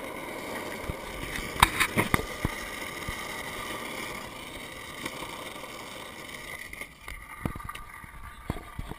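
Longboard wheels rolling on asphalt: a steady roar with a few sharp knocks about two seconds in. It quietens near the end, with a few more knocks.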